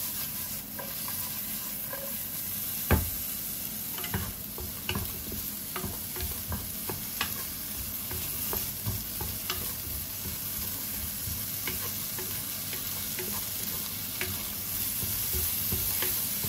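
Thin potato slices sizzling in a nonstick frying pan while a wooden spatula stirs them, knocking and scraping against the pan again and again, with one sharper knock about three seconds in.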